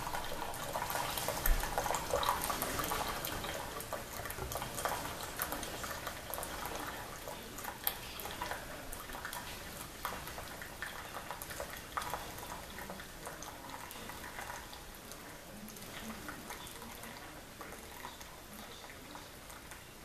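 Keurig Special Edition single-cup coffee maker brewing: hot coffee streams and trickles into a mug with many small crackling drips, slowly fading toward the end.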